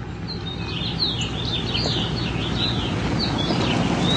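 Birds chirping in many quick, short calls that slide up and down in pitch, over a steady low hum that slowly grows louder.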